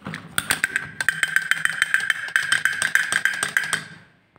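Battery-operated toy elephant drummer beating its small plastic drum with its sticks: a fast, even rattle of clicking strokes, about ten a second, with a steady ringing tone, dying away just before the end.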